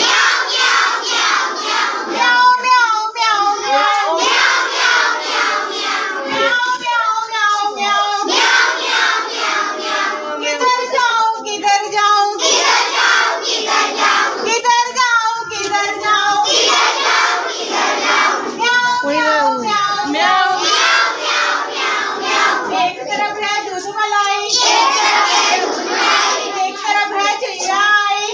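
A group of children singing a Hindi nursery rhyme together, phrase after phrase with no break.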